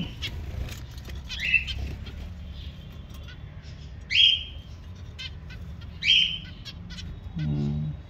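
Finch giving a loud, short call three times, about two seconds apart, over low rustling from a hand moving in the nest.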